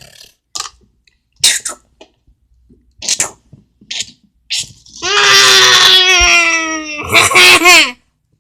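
A young child making silly vocal noises: a few short breathy puffs and snorts, then a loud drawn-out voice sliding slowly down in pitch about five seconds in, and a couple of shorter cries near the end.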